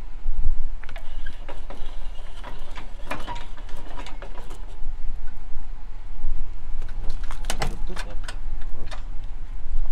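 Metal clanks and rattles from a boat trailer's coupler and safety chains being handled at the hitch, over a steady low rumble. The clanks come in clusters about a second in, around three to four seconds in, and most sharply near the end.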